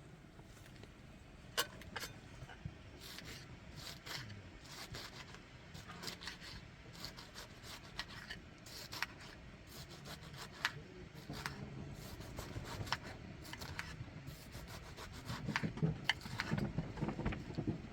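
Repeated scraping and rubbing with scattered sharp clicks and taps, like hand work with tools or materials. A low rumble grows louder over the last few seconds.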